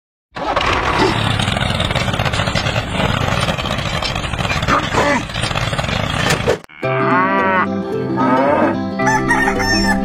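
A dense, steady grinding noise from the toy tractor and its roller moving over sand. After a sudden cut about two thirds of the way in, a rooster crows over light background music.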